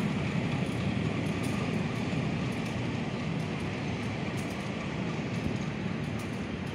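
Steady low rumble of an electric commuter train running slowly along the tracks, blended with general outdoor city noise.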